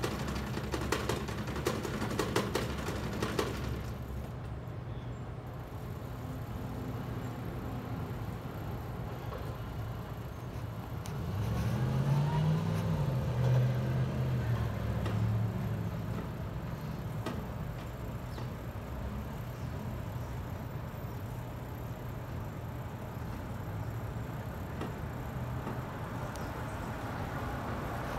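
Street traffic: a steady low hum, with a motor vehicle passing about twelve seconds in, its engine note rising and falling for a few seconds. A run of light clicks and rattles in the first few seconds.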